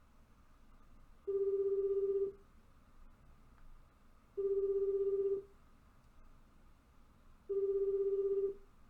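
Telephone ringing tone on a call being placed: a single low steady tone about a second long, sounding three times about three seconds apart.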